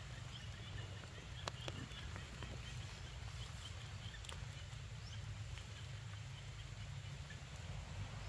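Forest ambience: a steady low rumble under faint, rapidly repeated high chirps, with a few sharp clicks in the first half.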